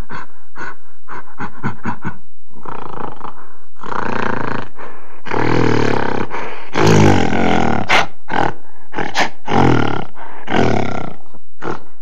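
Animal roars and growls, a sound effect for the wolf and gorilla: a run of short quick calls, about four a second, then longer loud roars from about four seconds in, ending suddenly.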